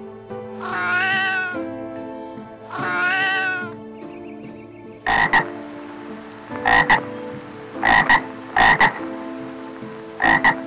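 An animal meows twice, each a long call that rises and falls in pitch. From about halfway come sharp croaking calls in pairs, repeated about five times. Soft sustained background music runs underneath.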